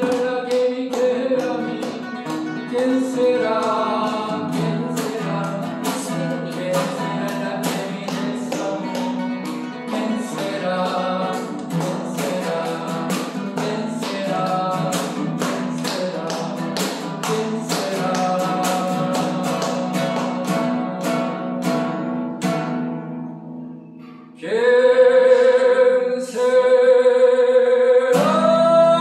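Acoustic guitar strummed in a steady rhythm under a harmonica melody. The strumming stops about three-quarters of the way through, and after a short lull loud, steady held harmonica notes come in near the end.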